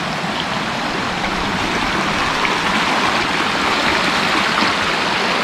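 Shallow mountain stream flowing over rocks: a steady rushing of water that grows slightly louder toward the end.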